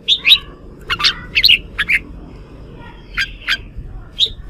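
Red-whiskered bulbul singing in short, quick bursts of bright chirping notes, about half a dozen phrases with brief pauses between them.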